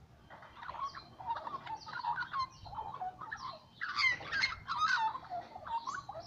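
Young Australian magpies warbling, a continuous run of varied notes that glide up and down, loudest from about four seconds in.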